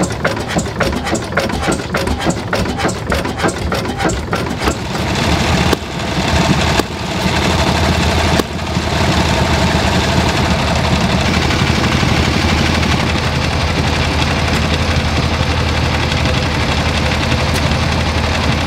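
Old single-cylinder stationary engine running slowly with an even beat of about five exhaust strokes a second. Then a small two-cylinder opposed engine on a test stand runs steadily and faster.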